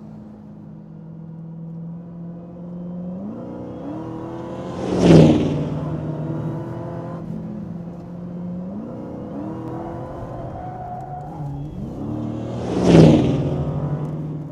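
2015 Dodge Challenger SRT Hellcat's supercharged 6.2-litre V8 running and accelerating, rising in pitch and swelling to a loud peak twice, about five and thirteen seconds in.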